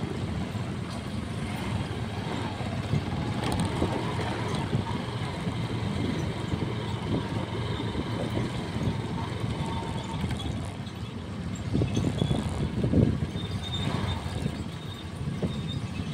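Motorcycle engine running steadily while riding along a street, with wind and road noise; it swells louder briefly about twelve and thirteen seconds in.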